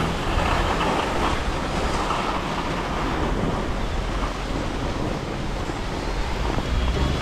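Steady rushing noise of wind across an action camera's microphone and skis sliding over snow while skiing downhill.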